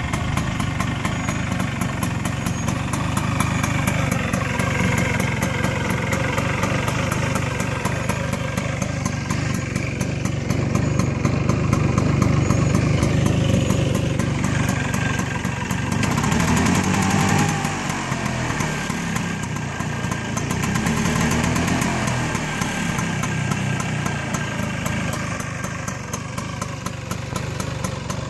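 Vintage Vespa VBB 150's single-cylinder two-stroke engine idling steadily, with a brief rise and fall in pitch about two-thirds of the way through.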